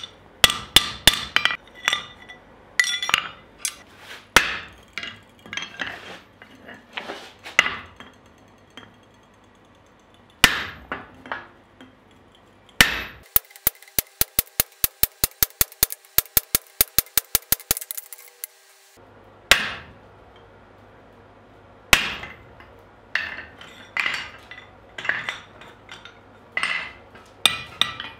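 Hand hammer striking hot steel on an anvil: irregular ringing blows, with a short pause about a third of the way in. About halfway through comes a fast even run of about six blows a second for some five seconds, on a handled top tool set on the work, then irregular blows again.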